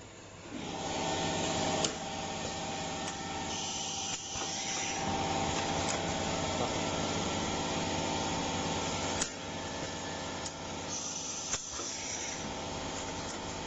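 Automatic fry-pan handle stud welding machine starting up about half a second in and running with a steady mechanical sound and a constant tone. About six sharp clicks are scattered through it, the loudest near two seconds and near nine seconds in.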